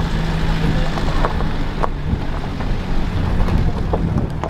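A vehicle's engine droning steadily as it drives over a rough rocky dirt road, with wind buffeting the microphone at the open window and a few brief knocks and rattles.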